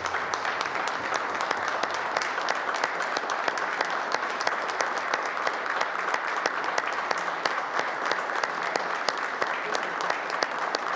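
Steady applause from a room full of people clapping.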